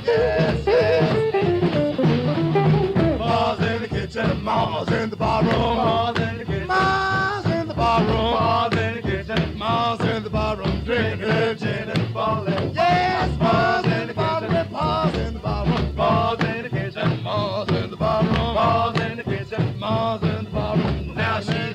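Instrumental break of a late-1940s jump-blues record: a lead horn plays a solo over a rhythm section keeping a steady swinging beat. The recording has a dull, narrow, old-record sound with no top end.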